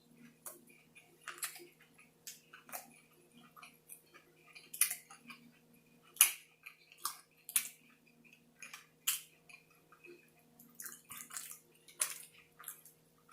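Close-miked chewing of a burger: irregular wet mouth clicks and smacks, several to a second at most, over a faint steady hum.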